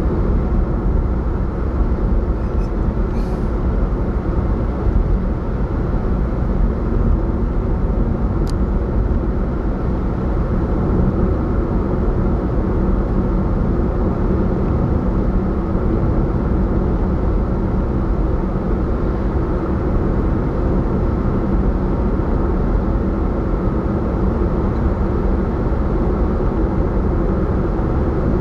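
Steady road noise of a car driving along, tyres on asphalt and the engine, with a faint steady hum underneath. A brief high tick sounds about eight seconds in.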